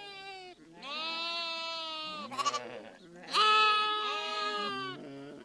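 A goat or sheep bleating: a run of pitched calls in which two long, drawn-out bleats of about a second and a half alternate with short ones.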